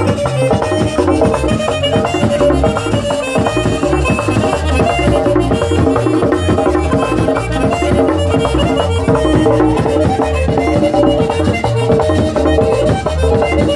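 Instrumental passage of live accordion music: an accordion plays a melody over a steady, evenly repeating beat on a laced caja-style hand drum.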